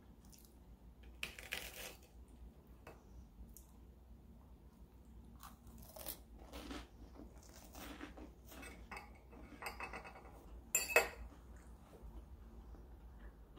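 Crunching and chewing of toasted garlic bread, with occasional sharp taps of a metal fork on a ceramic plate; the loudest of these comes near the end.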